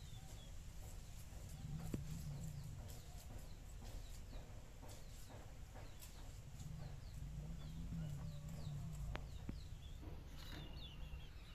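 Short scraping strokes of small bata fish being scaled against a boti blade, with a few sharp clicks, while small birds chirp repeatedly in the background.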